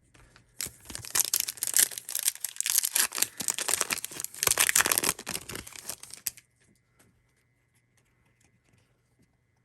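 Foil trading-card pack wrapper being torn open and crinkled, a dense crackling rustle for about six seconds that stops abruptly, followed by a few faint ticks.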